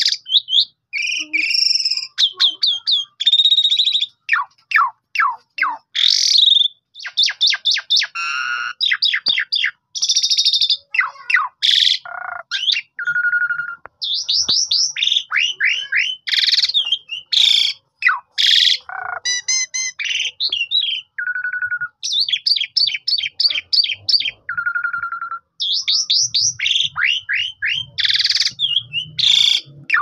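Asian pied starling singing a long, varied song almost without pause: rapid runs of short falling notes, chattering trills and a few clear, held whistles.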